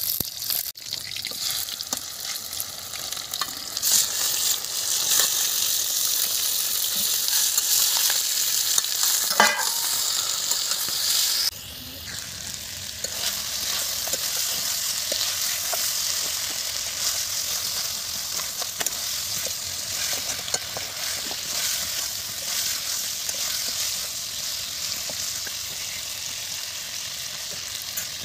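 Sliced onions sizzling in hot oil in an aluminium wok while stirred with a metal spoon, the spoon clicking and scraping on the pan. About eleven seconds in the sizzle drops a step quieter as chicken pieces fry in a thick spice masala, stirred and scraped with a spatula.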